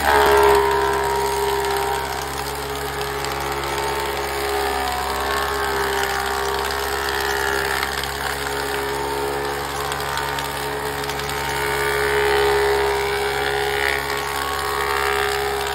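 An industrial wood thickness planer running with a steady whining hum as a wooden board feeds through its cutterhead, with shavings spraying out.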